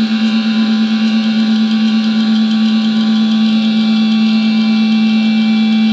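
Distorted electric guitar holding one loud note as a steady drone, with a fast wobble in its loudness at first that evens out.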